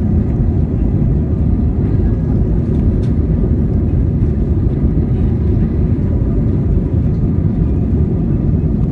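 Jet airliner cabin noise during the climb after takeoff: the engines and rushing air make a steady, deep rumble with no let-up.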